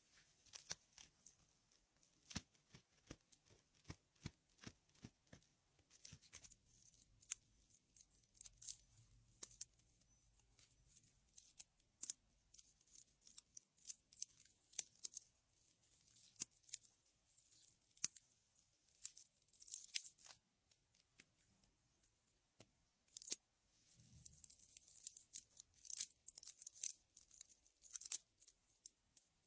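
Ear pick scraping inside an ear canal, heard close up: a run of sharp clicks and scratchy crackles, denser near the end.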